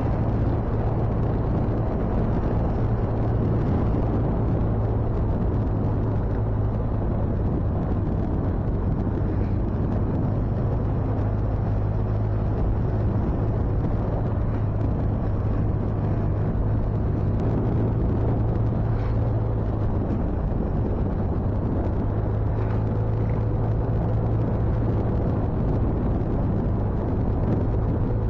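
Motorcycle riding along at a steady pace: its engine running evenly under a low rumble of wind on the microphone.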